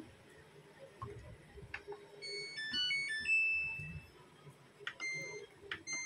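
Samsung top-load washing machine's control panel playing its power-on jingle, a quick run of short electronic notes at changing pitches lasting about a second, then a single beep near the end as the cycle-selector touch button is pressed.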